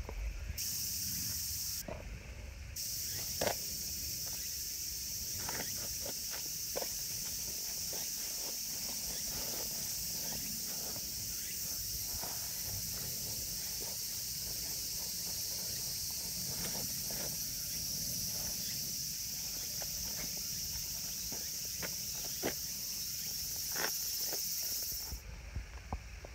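Steady, high-pitched insect chorus that drops out briefly near the start and cuts off abruptly near the end, with scattered soft rustles and light footsteps in grass underneath.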